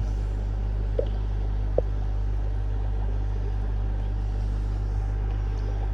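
Steady low hum of running fishroom equipment, with two faint ticks about one and nearly two seconds in.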